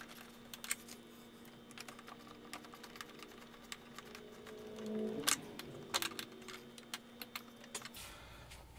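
Faint, irregular light clicks and ticks of small fasteners being handled and threaded in by hand into a motorcycle's plastic rear fender, over a faint steady hum. There is a slightly louder rustle of handling about five seconds in.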